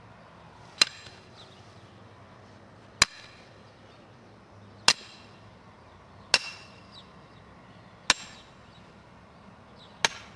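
Sledgehammer striking the head of a steel tent stake, driving it into the ground: six sharp metal-on-metal blows about every one and a half to two seconds, each with a brief ring.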